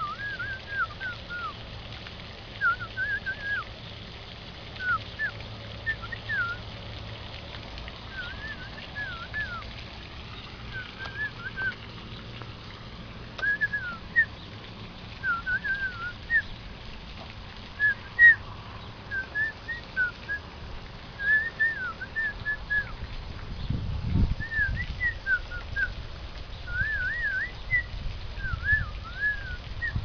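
Short whistled chirping notes, bird-like slurs rising and falling, in quick groups of two to four with brief gaps between, going on all through. A low muffled bump about two-thirds through.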